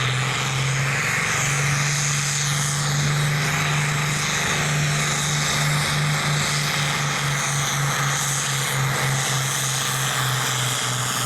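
A farm-class pulling tractor's engine running flat out under heavy load as it drags the weight sled down the track. A loud, steady drone that begins to pulse about halfway through.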